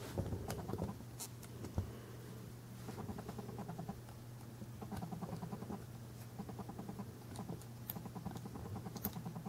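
Faint handling noise of a scale-model mixer's extension chute being slid and hooked onto the main chute: small clicks and scratchy rubbing, with a few sharper clicks in the first second and one near the end, over a steady low hum.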